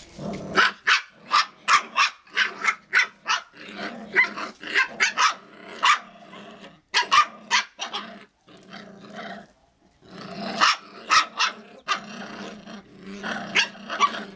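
Icelandic sheepdog puppies growling and yapping in play while tugging on a leash: rapid sharp barks, several a second, over steady low growling, with a brief lull a little past the middle.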